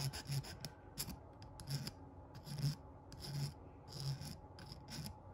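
Hand file rasping across the hammered-flat end of a copper wire in a series of short strokes, about two a second, smoothing off the rough edges.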